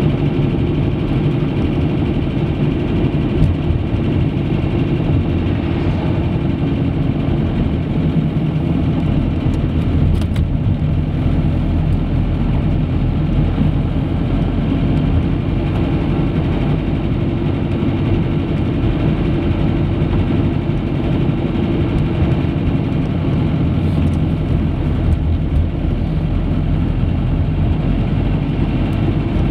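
Car driving heard from inside the cabin: the engine and tyres on the road make a steady low drone that keeps an even level throughout.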